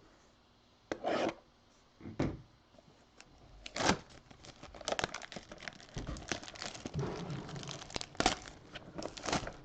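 Plastic wrap being torn off a trading-card mega box and crinkled: a few separate rips, then about halfway in a dense stretch of crackling and tearing.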